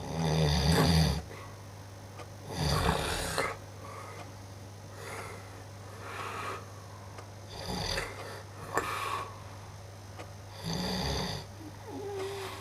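A man snoring loudly in his sleep: a run of rasping snores at irregular intervals, the loudest right at the start and again about two and a half seconds in, with weaker ones in between and another strong one near the end.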